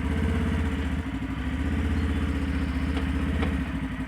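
Motor-vehicle engine running steadily, a little louder for most of the stretch, with two faint ticks about three seconds in.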